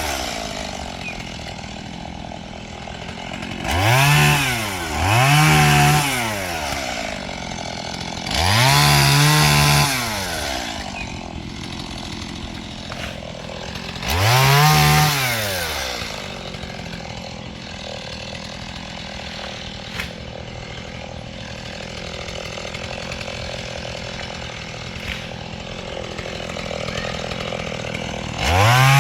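Small two-stroke chainsaw, a Stihl MS170, revving up in short bursts of one to two seconds, about four times, and dropping back to a low idle between them. Another rev begins near the end.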